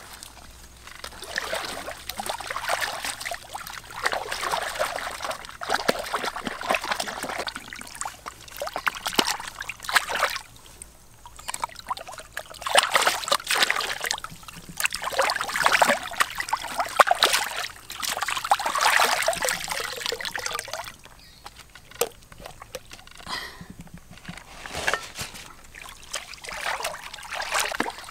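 Stream water splashing and sloshing in repeated bursts as a large fish is rinsed by hand in the shallows, with short quieter pauses between bursts.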